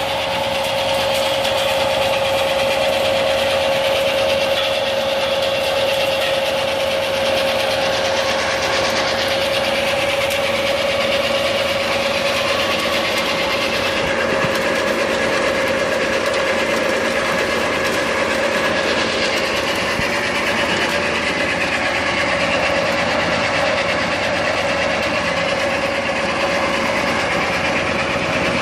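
Hazelnut harvesting machine running steadily, its engine noise carrying one strong steady tone throughout.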